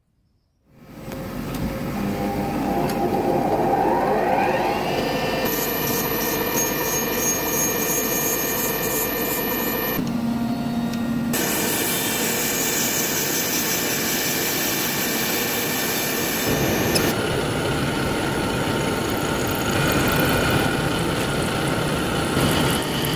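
A machine-tool motor spins up with a rising whine and settles into a steady run. After a cut, a grinding wheel grinds a spinning steel part, throwing sparks. In the last few seconds an end mill cuts steel held in a milling vise.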